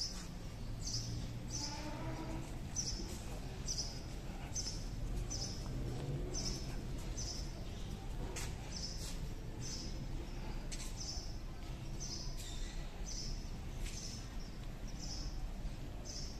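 A small bird chirping over and over, one short high chirp roughly every half second to second, over steady low outdoor background noise.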